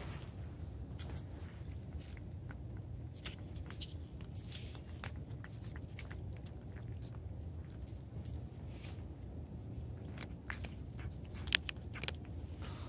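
Cat licking creamy treat paste from the end of a squeeze tube: irregular small wet clicks and smacks of tongue and mouth.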